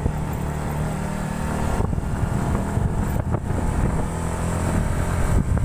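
Motorcycle engine running steadily while riding, its low hum under a wash of road noise.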